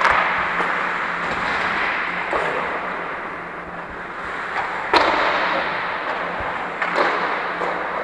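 Ice hockey play: a steady scraping hiss of skates on the ice, broken by sharp clacks at the start, about five seconds in and about seven seconds in.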